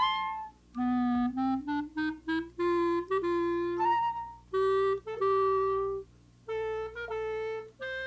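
Film score music: a solo woodwind melody climbing step by step, short detached notes at first, then longer held notes with brief pauses between phrases.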